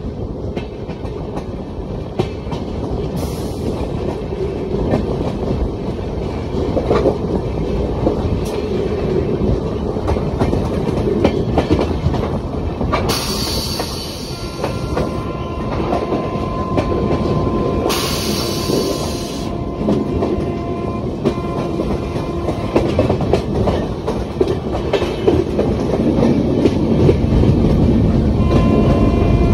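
Indian Railways train running at speed, heard from on board: a steady rumble with wheels clattering over the rails.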